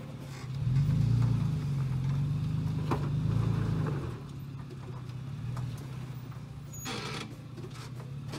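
Toyota FJ Cruiser's 4.0-litre V6 engine pulling under load as the truck crawls up a steep rutted dirt climb, growing louder about half a second in and easing back about four seconds in.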